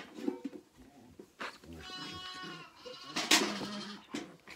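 Zwartbles lamb bleating: one drawn-out, steady call of about a second starting a little before halfway, then a louder, rougher bleat.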